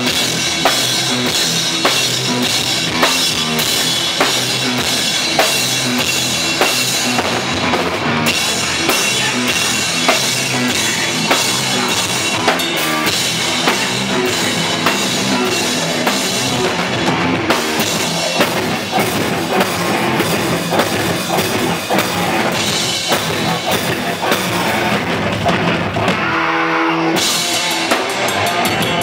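Hardcore punk band playing live and loud: fast drum-kit beat with cymbals, distorted electric guitars and bass. Near the end the drums and cymbals stop for about a second while a guitar chord rings on, then the drums come back in with fast, even hits.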